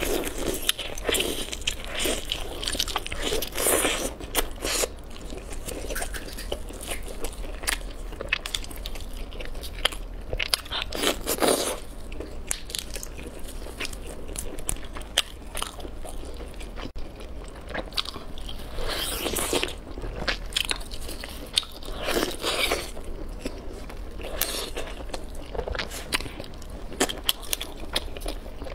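Close-miked biting and chewing of crispy, sauce-coated fried chicken: crunchy bites and moist chewing, with louder crunches coming in clusters every few seconds.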